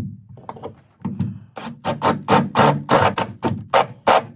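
Cordless drill with a step drill bit enlarging a hole in a car's sheet-metal body panel, run in short repeated bursts, about four a second, the bit chattering as it cuts up through the steps toward an 18 mm hole.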